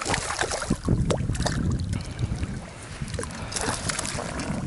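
Hooked bass thrashing and splashing at the surface beside a boat, in irregular sharp splashes.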